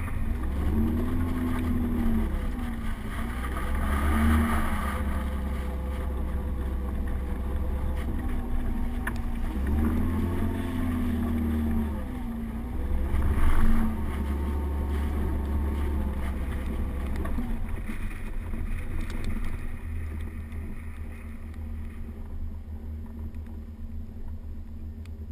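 Volvo 740 GL's engine revving up and down repeatedly as the car slides through turns on snow, heard from outside the car with wind buffeting the microphone. Two louder rushes of noise come at about 4 and 13 seconds, and the engine eases off and quietens over the last few seconds.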